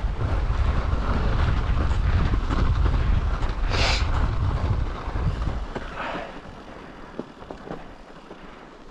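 Mountain bike riding on a snowy, icy track, with wind buffeting the microphone as a heavy low rumble over the tyre noise. A short hiss comes about four seconds in. The rumble drops away about five and a half seconds in, leaving quieter tyre and trail noise.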